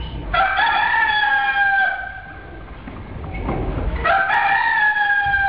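A rooster crowing twice, about four seconds apart; each crow is one long call that falls slightly in pitch at the end.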